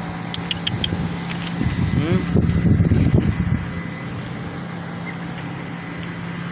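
A vehicle engine idling with a steady low hum. About two seconds in, a louder stretch of short voice-like sounds with sliding pitch lasts around a second and a half.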